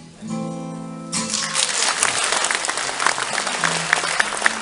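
A final acoustic guitar chord rings briefly as the song ends, then an audience breaks into applause about a second in, with many sharp individual claps.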